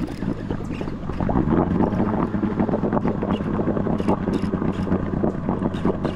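Boat's outboard motor running steadily, getting a little louder about a second in, with wind buffeting the microphone.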